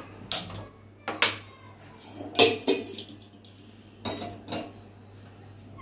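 A few sharp clicks and metal clanks as a gas stove burner is lit with a hand-held spark lighter and a stainless steel pot is set down on the burner grate. The knocks come singly and in pairs, about a second apart, the loudest a little past the middle.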